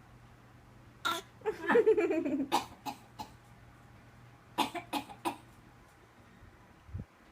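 Put-on, fake coughing: short forced coughs in a few groups, about a second in, around three seconds in and again near five seconds in, with a longer voiced sound falling in pitch between the first groups. A dull low thump near the end.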